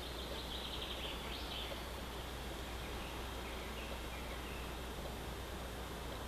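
Steady outdoor background noise with a low hum, over which a small bird gives a high, rapid trill in the first two seconds, ending in a quick upward note, then a few faint high calls.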